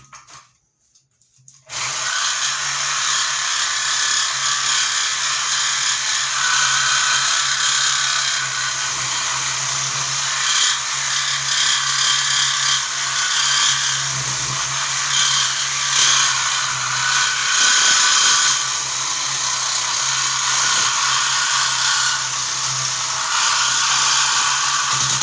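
Reciprocating saw starting up about two seconds in and running steadily, its blade cutting through the steel shell of an air compressor tank just below the weld.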